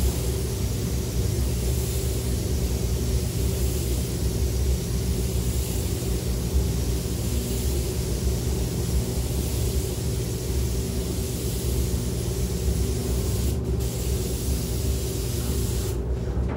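Compressed-air spray gun hissing steadily as it sprays quartz glass coating onto car paint, over the steady hum of the spray booth's ventilation. The hiss breaks off briefly once and stops near the end.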